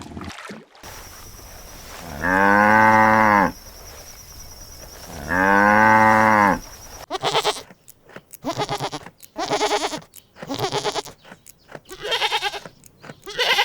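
A cow mooing twice, two long calls that rise and fall, a few seconds apart. After them comes a run of short, choppy animal calls in quick succession.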